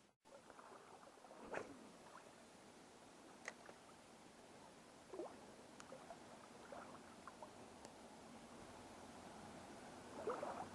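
Near silence: faint steady background hiss with a few scattered faint ticks and short chirps.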